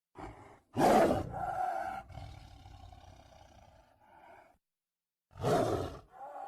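Tiger roaring: a short call, then a loud roar about a second in that trails away over a few seconds, and another roar near the end.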